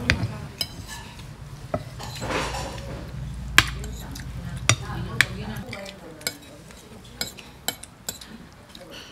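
A metal spoon clinking and scraping against a plate as it stirs rice into a saucy seafood dish. There are a dozen or so irregular sharp clinks.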